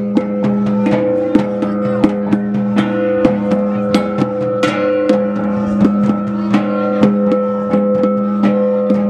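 Small hand-held bossed gong struck with a padded beater in a steady fast beat, about three strokes a second, its ringing tone held between strokes, with other percussion strokes mixed in.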